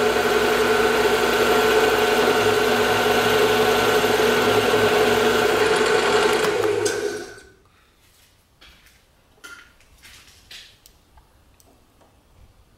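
PM-727M milling machine spindle running with an offset boring head, taking a light boring pass in a bearing pocket: a steady machine whine with several tones. It stops sharply about seven seconds in, followed by a few faint clicks and taps as the bore is checked with a caliper.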